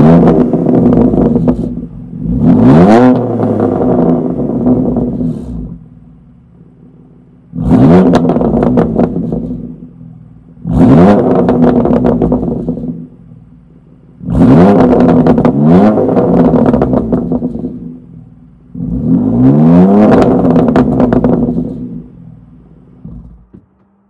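BMW M2 Competition's twin-turbo straight-six, breathing through a Remus race rear-section exhaust with the catalytic converter and particulate filters kept, revved six times while stationary. Each rev rises quickly in pitch, then falls back to a steady idle.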